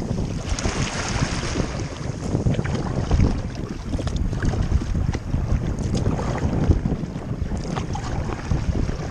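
Wind buffeting the microphone over water splashing and washing against the hull of a sit-on-top sea kayak under way on choppy sea, with scattered small splashes.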